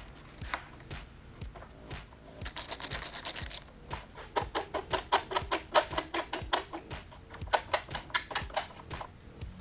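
Runs of rapid ratchet clicks from a socket wrench tightening a motorcycle bar end, over background music.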